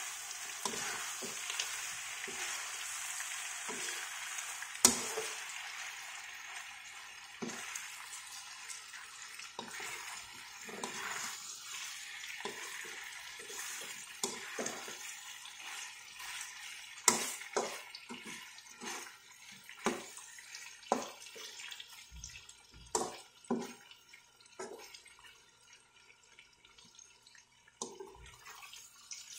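Pork adobo sizzling as it fries in a wok, with a slotted metal spatula scraping and knocking against the pan as it is stirred. The sizzle is strongest in the first few seconds and fades in the second half, leaving mostly the scattered spatula knocks.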